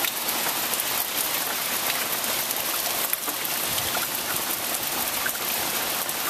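Heavy rain falling steadily: a dense hiss with many individual drops ticking sharply close by.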